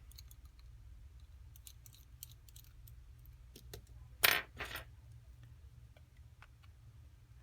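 Small screwdriver working the bottom screws of an iPhone 5c, with faint scattered ticks and one sharp metallic clink about four seconds in, followed by a smaller one just after.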